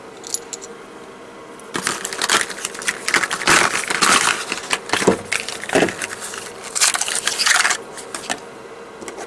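A small cardboard spark plug box being handled and opened, and a spark plug slid out of it. It makes bursts of crinkling, scraping cardboard noise from about two seconds in until near the end, with a few light clicks.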